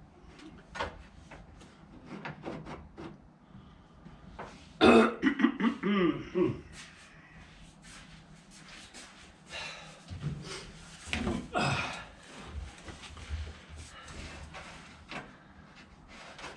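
Scattered light clicks and knocks of hands and tools working on the car, with a loud man's grunt about five seconds in and a shorter one around eleven seconds.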